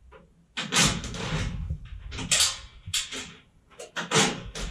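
Steel partition door being set onto its hinges: a series of metal knocks and rattles as the hinges are pivoted into their holes.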